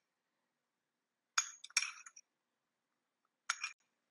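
Metal fork clinking against a small glass bowl while stirring beaten egg: a quick run of clinks about a second and a half in, and a shorter one about three and a half seconds in.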